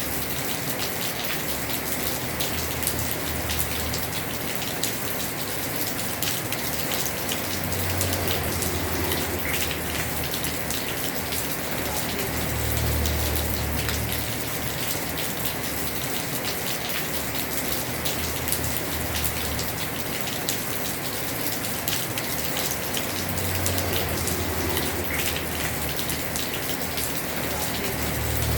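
Heavy rain falling steadily on a house roof, a dense even patter of drops. A low rumble swells and fades about four times.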